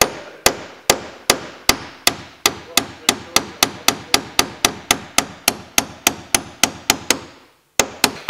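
Hammer striking a nail punch to drive an old copper nail out of a wooden boat's hull planking: a steady run of sharp metal-on-metal blows, about two or three a second and quickening slightly, then a short pause and two last blows near the end.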